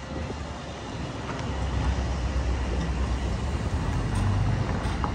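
Street traffic, with vehicle engines running close by, growing louder about a second in and then holding steady.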